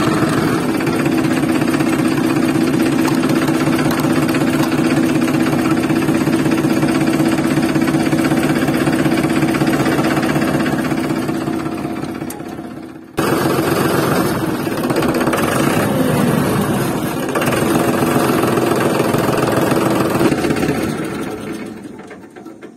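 Tractor engine running steadily with a rapid chugging beat; it cuts off abruptly about thirteen seconds in, starts again at once, and fades away near the end.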